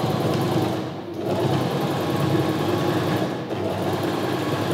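Electric domestic sewing machine stitching through cloth at a fast, steady rate. It eases off briefly twice, about a second in and again past the middle.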